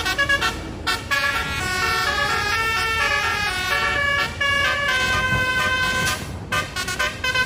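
A truck's basuri (telolet) horn with 24 trumpets playing a melody. It starts with short choppy notes, moves to longer held chords that change pitch step by step, and returns to short quick notes near the end.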